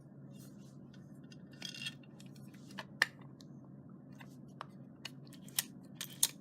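Scattered sharp metallic clicks and clinks as the parts of a Schlage BE365 keypad deadbolt are handled and the interior faceplate is fitted on. The loudest click comes about three seconds in, with a few more near the end.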